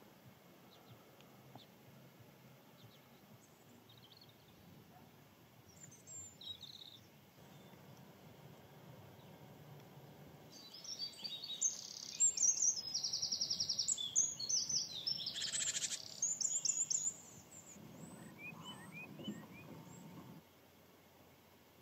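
Small songbirds singing outdoors: faint scattered chirps at first, then about halfway in a loud burst of high twittering song with a fast, even trill, tailing off into a few quieter chirps near the end.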